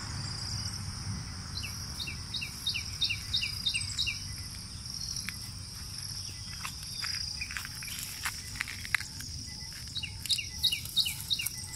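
A songbird twice sings a quick run of about seven downward-sliding chirps over a steady, high-pitched insect drone. Scattered short clicks and scuffs fall between the two runs.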